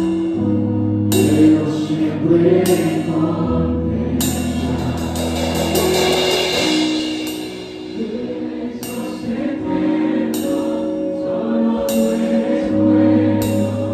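Live church worship music: voices singing over acoustic guitar, held low bass notes and a drum kit, with cymbal crashes every second or two.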